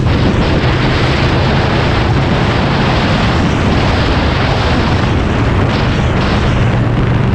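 Motorcycle ridden at road speed, heard from onboard: heavy wind rush over the microphone on top of a steady low engine drone.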